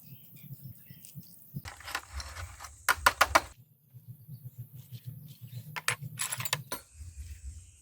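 Metal clicks and taps of hand work on bicycle parts, with a quick run of loud, sharp clicks about three seconds in and a few more later.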